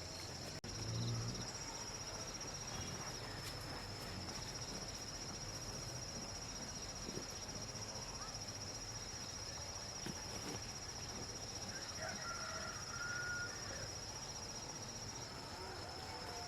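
Insect trilling steadily on one high note, breaking off for about a second near the three-second mark, with a low thump about a second in and a short higher call about two-thirds of the way through.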